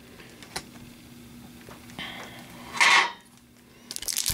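Quiet handling of trading cards with a light click and a short swish, then near the end the foil wrapper of a hockey card pack starts crinkling as it is picked up from the stack.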